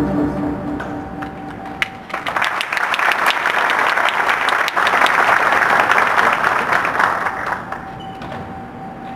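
Audience applauding, starting about two seconds in and dying away near the end, while the music's beat fades out at the start.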